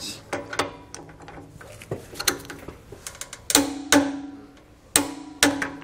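Steel wrenches clinking against the sway bar end link hardware as its bolts are tightened, with a string of sharp metallic clinks that each ring briefly.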